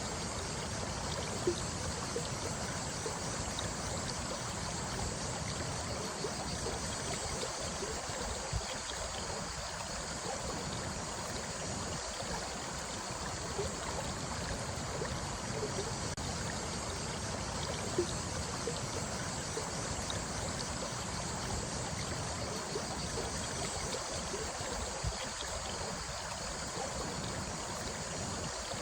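Running water: a steady rush with scattered small plops and gurgles.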